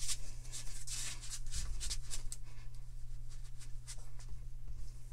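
Fabric rustling and rubbing in short scratchy strokes as stretchy mesh shorts are tugged at the waistband, mostly in the first half, over a steady low hum.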